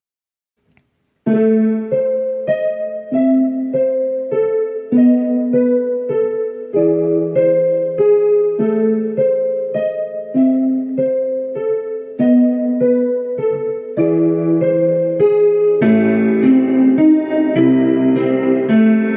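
Background music: a piano-like keyboard playing a repeating pattern of notes, which enters after a second of silence and thickens with lower notes about three-quarters of the way through.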